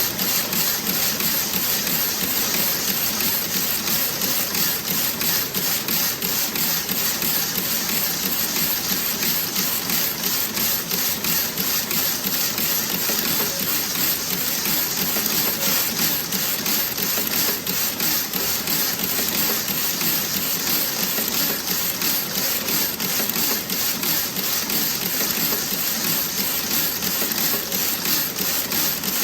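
Toe-sock knitting machine running, a fast, even clatter of rapid ticks over a steady hiss.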